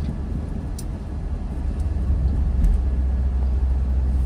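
Steady low engine and road rumble of a car being driven, heard inside the cabin, with a couple of faint clicks.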